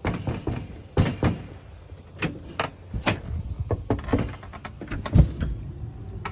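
Front door being handled and opened, with a run of irregular knocks, clicks and clatters, the loudest about a second in and again near the end.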